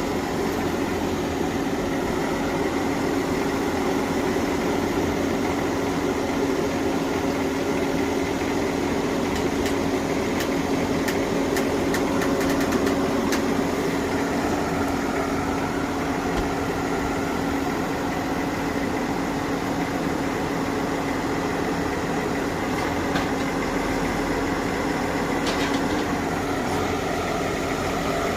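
A vehicle engine running steadily at a constant speed, a low, even drone that does not change.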